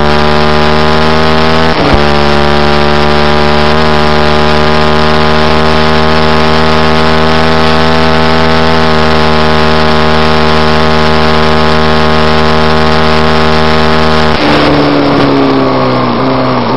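Onboard sound of a middleweight supersport motorcycle's engine held at a steady high pitch at full throttle, over 160 mph on the banking, with heavy wind rush. About fourteen seconds in, the throttle closes and the engine note falls, with a downshift near the end as the bike slows.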